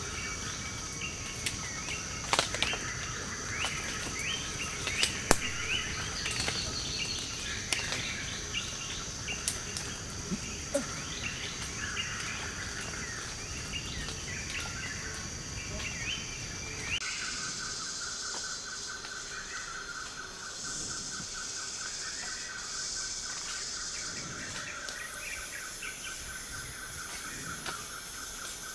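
Forest ambience: a steady insect drone with many short bird chirps and scattered sharp clicks. About halfway through it changes abruptly to a fast-pulsing insect trill over a hiss.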